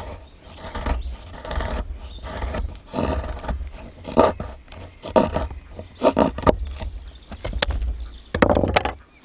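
Irregular scraping and cracking of dry wood, about ten rough strokes with one sharp snap near the end, over a steady low rumble on the microphone.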